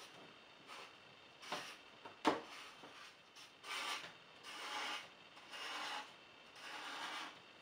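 Black felt-tip marker scratching across paper in a run of drawing strokes. Faint short strokes come first, then a sharp tap about two seconds in, then four longer strokes in the second half as the lettering and spiky balloon outline are inked.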